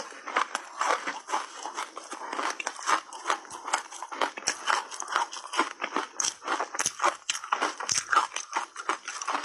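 Ice coated in matcha powder being chewed close to the microphone: a continuous run of crisp crunches and crackles as the ice breaks between the teeth.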